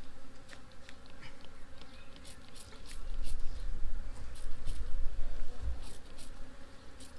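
A swarm of honeybees buzzing, a steady hum with individual bees zipping close past the microphone. A low rumble on the microphone swells in the middle.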